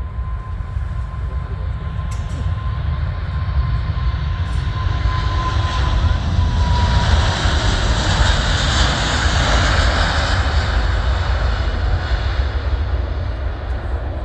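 Four-engine Emirates Airbus A380-800 jetliner passing the spotter. There is a low rumble throughout, and a thin engine whine that drops in pitch about six seconds in as the jet roar swells. The roar is loudest around nine seconds in and then eases off.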